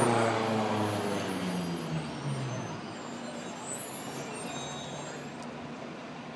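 A car passing close by and driving off. Its engine sound fades over the first few seconds into steady street traffic noise.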